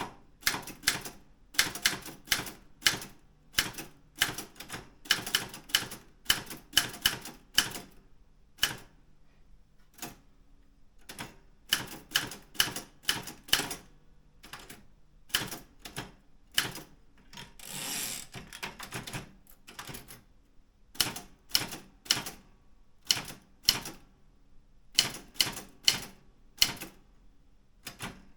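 Typing on a Daro Optima M16 manual typewriter: irregular runs of sharp typebar strikes, slowing to a few scattered strokes for a few seconds. About two-thirds of the way through, one longer rasping sound of about a second, as the carriage is returned.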